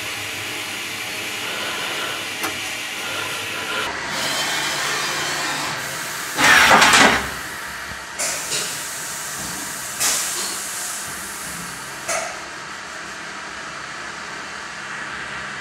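CNC milling machine running steadily, then a loud hiss of air lasting about a second, about six and a half seconds in, followed by four shorter hisses.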